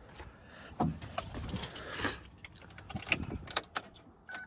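A bunch of keys jangling and clicking as they are handled, with a short electronic beep near the end.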